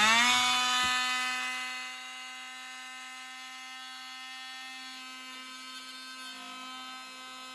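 Electric power saw running at full speed with a steady whine. It is louder for the first second or two as the blade cuts a slit into PVC pipe, then runs on steadily.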